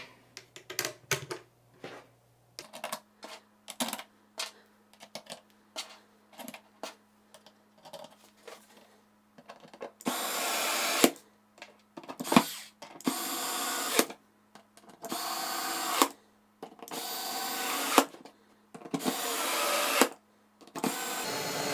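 Light clicks and knocks of plastic parts being fitted together. Then, from about ten seconds in, a cordless electric screwdriver runs in six short bursts of about a second each, each rising in level to a sharp stop, driving screws into the module's clear plastic enclosure.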